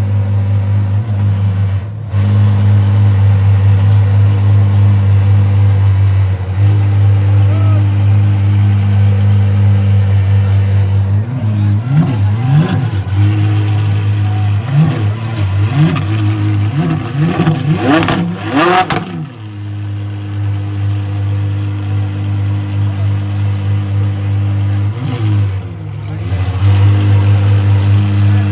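A car engine idling steadily at an even pitch, with no clear change in revs.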